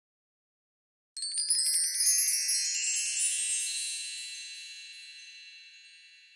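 Wind-chime sparkle sound effect: a sudden cascade of high, bell-like tinkles about a second in, which rings on and slowly fades away.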